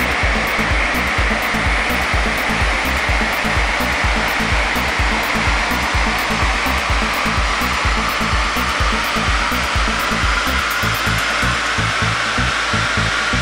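Loud, steady rushing noise of a BMW 330d straight-six turbodiesel being run on a chassis dynamometer, with a whine that slowly falls in pitch. Electronic music with a steady beat plays over it.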